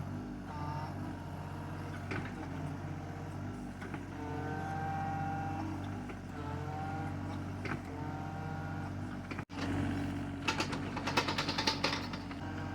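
Excavator diesel engine running steadily, with a higher whine coming and going as it works. About ten seconds in comes a quick run of clanks and cracks.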